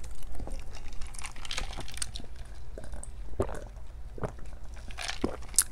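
Close-up eating sounds: chewing with scattered small clicks and taps as a plastic cup is picked up and drunk from.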